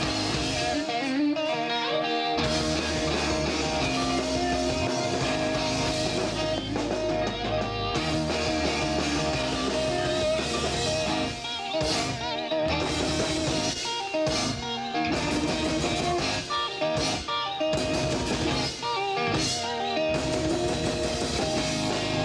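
Live emo rock band playing electric guitars and a drum kit at the start of a song. The bass and drums fill in about two seconds in.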